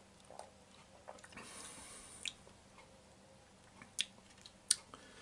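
Faint sounds of a person sipping and swallowing a drink, with a soft hiss about a second and a half in and two sharp clicks near the end.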